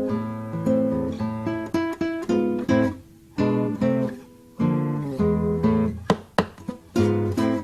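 Acoustic guitar music, plucked and strummed chords with short pauses between phrases.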